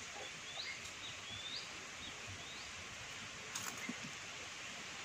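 Steady outdoor background hiss with a few short rising bird chirps in the first couple of seconds, and a single light metal knock about three and a half seconds in, as a spanner is set down.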